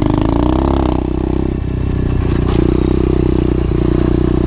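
Single-cylinder four-stroke engine of an SSR 125 pit bike running under way on a dirt trail; the revs rise and fall in the first second, then settle to a steady pitch. A few light knocks and clatters come through about halfway.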